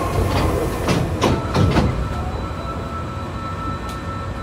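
Hankyu 3300 series resistance-control electric train running through a subway tunnel, heard from inside the car: a dense rumble with several sharp clacks of wheels over rail joints in the first two seconds, then a steadier, slightly quieter rumble with a faint high whine.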